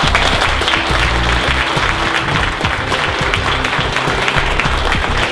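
A roomful of people applauding, with instrumental music playing underneath.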